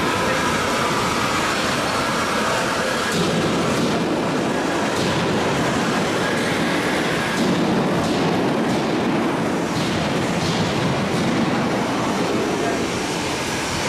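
Industrial workshop noise on a semi-trailer factory floor: a steady machinery din with scattered sharp metallic clanks and knocks.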